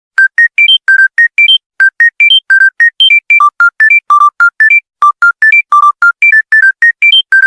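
Mobile phone ringtone: a fast melody of clean electronic beeps that starts just after a brief silence. It runs at about five short notes a second, mostly quick rising runs of four notes that repeat with small changes.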